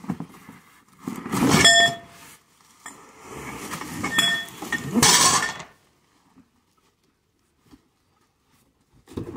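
Metal tube parts of a sheep deck chair clinking and ringing as they slide out of a cardboard shipping box, amid cardboard rustling and scraping. A clear metallic ring comes about a second and a half in and again about four seconds in, and a louder rustle follows about five seconds in.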